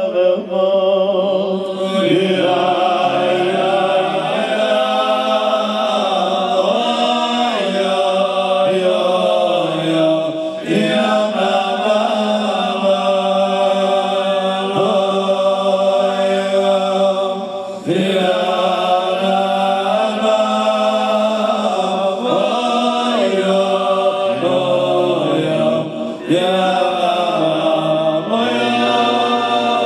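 Group of men's voices singing a slow Hasidic chant together through microphones, the melody gliding and drawn out in long phrases with short breaks between them.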